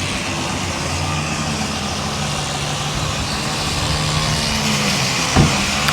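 Dodge pickup truck's engine idling steadily, with a brief knock about five seconds in.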